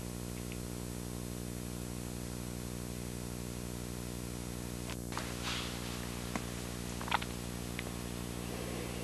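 Steady electrical mains hum with a stack of low overtones, with a few faint clicks about five and seven seconds in.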